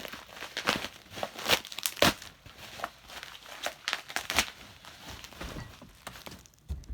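Packing material crinkling and rustling in irregular bursts as fan parts are pulled from their shipping box, loudest in the first two seconds.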